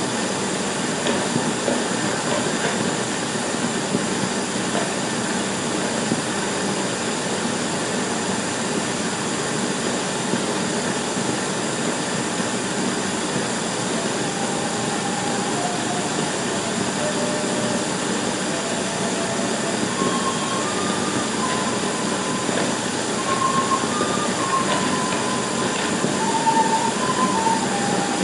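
A 16mm film projector running: a steady mechanical clatter with hiss and hum from the film's optical soundtrack. About halfway through, a simple tune of single notes comes in over it.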